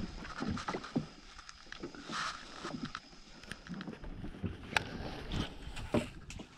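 Irregular knocks and light clatter in a small boat, with a few sharper knocks near the end.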